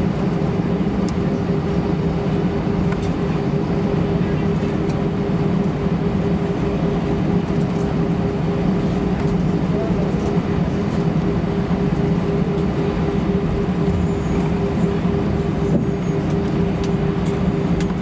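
Steady cabin noise inside an Airbus A320-232 taxiing after landing: its IAE V2500 engines run at idle over the hiss of the cabin air, a continuous hum with one held tone above it.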